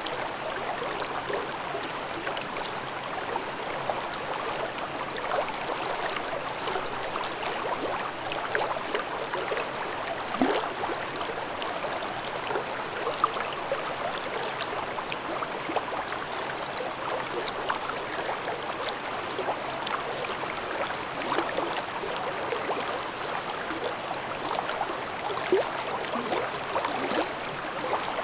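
Shallow valley stream babbling: a steady rush of water with fine bubbling and gurgling, and now and then a slightly louder gurgle or splash.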